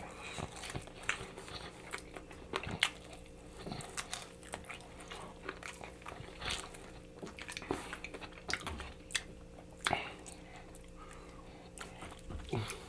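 Close-miked chewing and biting of sauced chicken wings: a run of irregular small wet clicks and crunches from the mouth.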